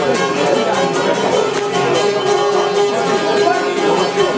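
Several long-necked lutes played together in traditional Albanian folk style, with fast, steady plucking.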